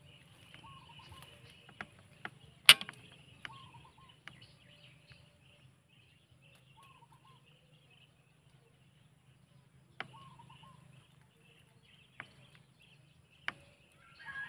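Quiet rural outdoor ambience: faint short bird calls every three seconds or so over a steady high buzz, broken by a few sharp clicks, the loudest about three seconds in.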